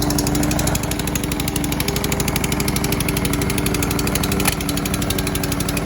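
Four-stroke petrol rotary lawn mower engine running steadily at a constant speed, with a fast even firing pulse; a single sharp click about four and a half seconds in. The engine is running properly after being repaired.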